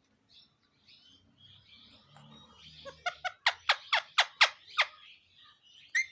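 Pet parrot giving a rapid run of about eight sharp, shrill calls, each sweeping down in pitch, starting about three seconds in and lasting under two seconds.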